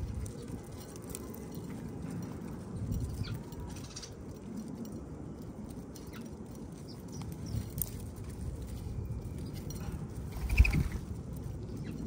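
Small backyard birds feeding on seed: scattered light pecking and scratching taps over a steady low rumble, with one louder knock and a brief squeak about ten and a half seconds in.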